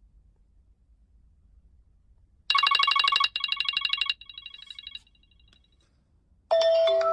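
iPhone ringtone imitating a ringing telephone bell: a loud, rapid trill of several tones starts about two and a half seconds in and runs for about a second and a half with a brief break. A quieter repeat fades away after it. Near the end a different ringtone starts, with held chime notes that die away.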